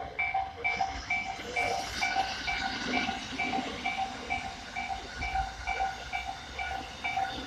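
Japanese level-crossing alarm ringing: an electronic bell-like tone struck evenly a little over twice a second. Beneath it runs the rushing noise of a passing train, strongest about two to three seconds in.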